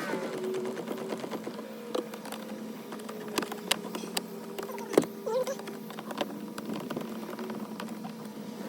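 Irregular small clicks and taps of hands handling plastic dash and steering-column parts, the sharpest about halfway through, over a steady low hum.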